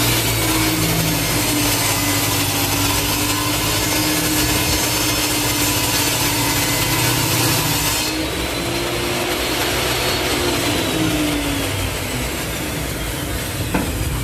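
Bosch 10-inch table saw running with its blade trimming the edge of a board in a jointing pass. About eight seconds in the high cutting hiss drops away and the saw winds down, its whine slowly falling in pitch.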